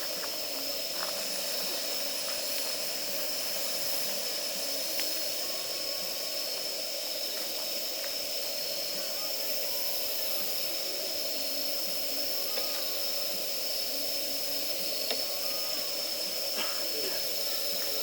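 Separate-canister gas burner running with a steady hiss as it blasts flame onto damp firewood to force it alight. A few faint ticks sound over it.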